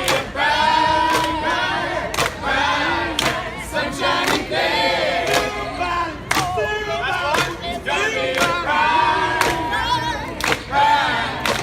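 Brass band playing with a drum striking about once a second in a steady beat, while a crowd of voices sings along.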